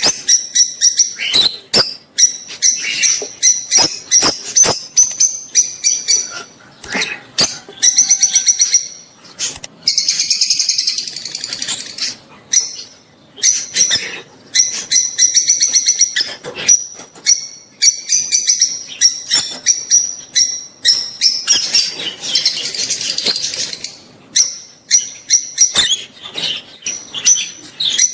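Lovebirds, rosy-faced and Fischer's, chattering in fast runs of shrill high chirps with short pauses between runs: their mating calls.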